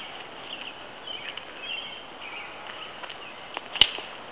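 A plastic toy fire truck breaking with one sharp crack near the end, as part of its soft plastic bottom cracks off, with a couple of small clicks around it. Faint bird chirps before it.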